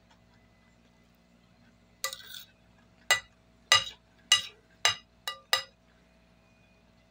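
Metal spoon clinking and scraping against a ceramic plate while scooping food: a short scraping rattle about two seconds in, then six sharp clinks over the next three seconds, the plate ringing briefly after each.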